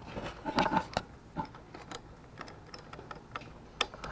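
Scattered light plastic clicks and taps as a Nissan Altima tail light bulb socket and its wiring are handled and twisted out of the lamp housing.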